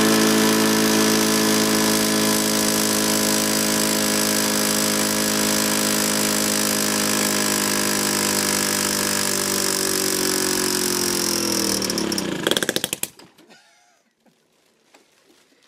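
Stiga SV150 four-stroke lawn mower engine running flat out on an oxygen-enriched lean mixture, a steady high-pitched drone. About eleven seconds in it slows, the last few firing strokes come apart, and it stops.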